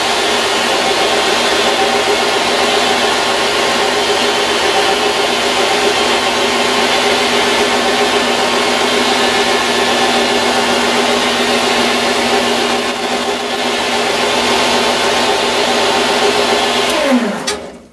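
Grizzly G0602 bench lathe running steadily, its motor and spindle gearing giving a constant whine while a center drill is fed into the spinning workpiece. Near the end the lathe is switched off and its pitch falls as it spins down.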